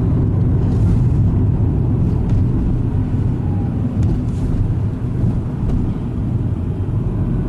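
Car engine and road noise heard from inside the cabin while driving: a steady low rumble with a faint engine hum.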